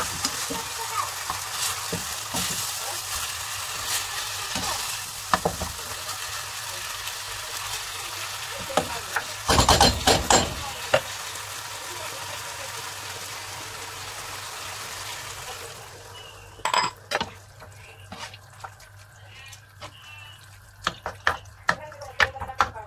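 Ground pork, onions and tomatoes sizzling in a skillet while a spatula stirs and scrapes through them, with a louder burst of stirring about ten seconds in. About sixteen seconds in, the sizzle drops off, and a few sharp knocks of the spatula on the pan follow.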